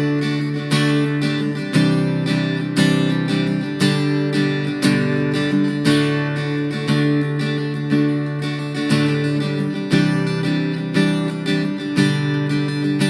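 Electric-acoustic guitar strumming rhythmic chords, played through a Blackstar Superfly portable amp with its electric channel engaged.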